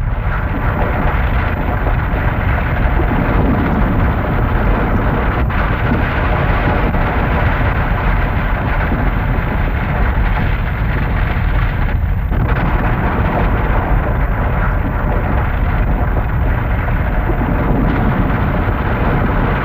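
Earthquake rumble sound effect: a loud, steady, deep rumbling roar of noise.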